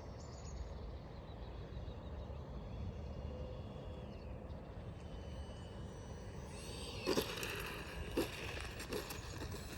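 Wind buffeting the microphone, with the faint whine of a distant electric RC plane's motor gliding slowly in pitch. About seven seconds in the sound turns rougher and louder, with a few sharp knocks.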